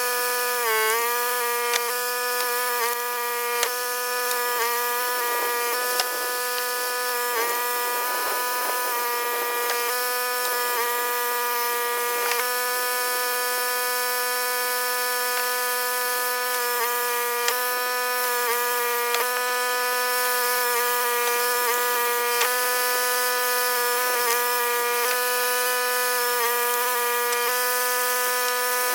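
Log splitter running at a steady pitch, dipping briefly about a second in as it takes a load, with occasional knocks.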